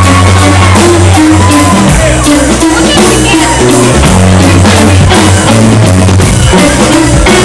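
Live blues-rock band playing loud: electric guitars over electric bass and a drum kit.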